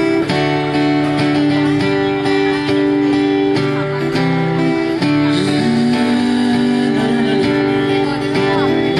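Acoustic guitar being strummed, its chords ringing on and changing every second or two.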